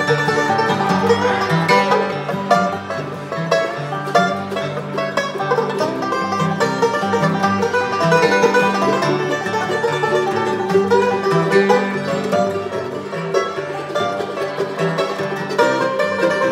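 Live instrumental bluegrass: a resonator banjo picking fast rolls over a flatpicked acoustic flat-top guitar, with a mandolin also playing.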